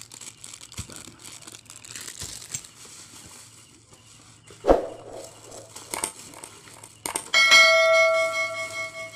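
Soft rustling and handling noise with a sharp knock partway through, then, about seven seconds in, a loud bell-like metallic ring that starts suddenly and fades over about two seconds.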